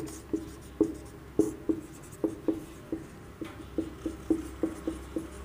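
Marker pen writing on a whiteboard: a run of short, irregular strokes, about two or three a second.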